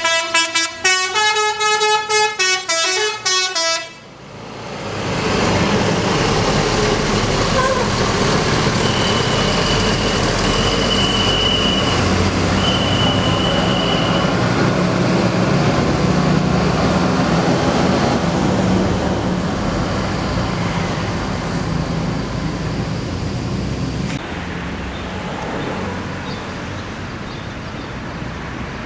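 A tour coach's telolet horn plays a quick tune of several notes for about four seconds, then stops. After that comes the coach's loud, steady engine and running noise, which eases off a little near the end.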